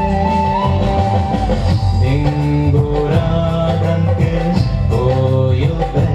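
Music of an Adi fusion dance song: held, gently sliding melody notes over a steady bass and beat, with no words sung.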